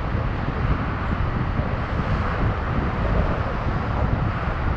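Wind buffeting the microphone, an uneven low rumble, mixed with steady road-traffic noise.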